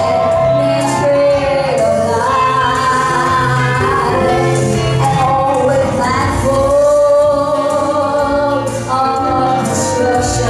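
A live gospel song: a woman singing into a microphone with electric guitar and keyboard accompaniment. Her notes are held and slightly wavering over a steady bass line.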